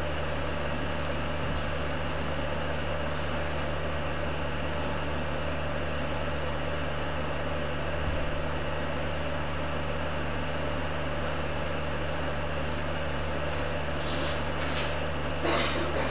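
Steady low hum under a constant hiss, with no music to be heard. A few short noisy sounds come near the end.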